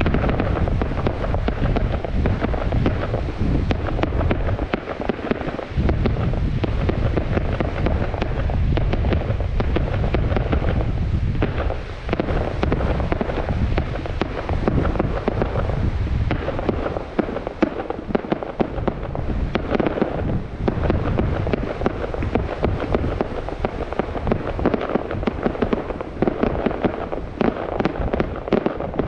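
Fireworks display: continuous booms from shells bursting, with dense crackling from crackle effects, the crackles growing thicker toward the end.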